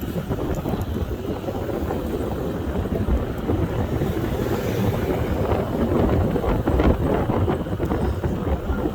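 Wind buffeting the microphone of a rider on an electric scooter moving at speed, a steady gusting rush with a few small knocks.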